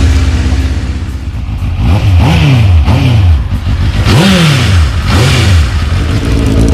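Honda CBF600's inline-four engine running through an aftermarket HP1 Dominator exhaust with its dB killer fitted, idling and then blipped four times, each rev rising and falling back to idle.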